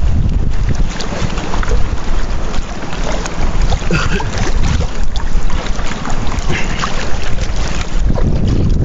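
Wind buffeting the microphone, a heavy low rumble, with sea water lapping and splashing around a small outrigger fishing boat and scattered small knocks and splashes.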